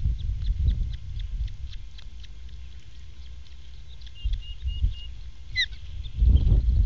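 Osprey chirping: a series of short, even, high notes about four seconds in and faint high peeps throughout, with one louder sweeping call just before the end. A low rumble comes up strongly in the last second.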